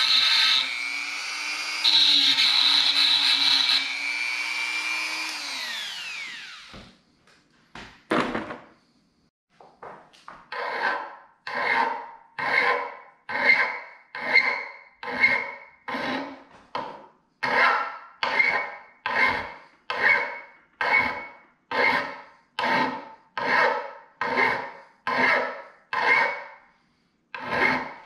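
A handheld rotary tool runs steadily, then winds down and stops about six seconds in. After a short pause, a hand file scrapes the clamped metal workpiece in steady back-and-forth strokes, about one stroke a second.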